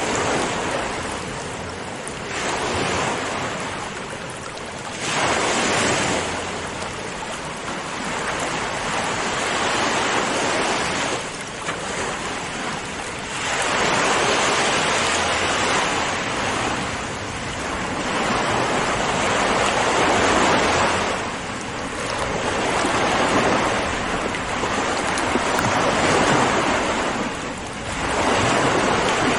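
Sea waves breaking one after another, the rush of surf swelling and fading every few seconds.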